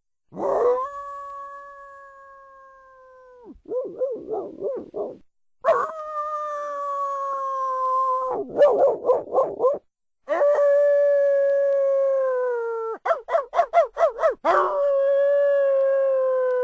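Canine howling: long drawn-out howls, each held steady and sinking slowly in pitch, broken up three times by short runs of quick yelps.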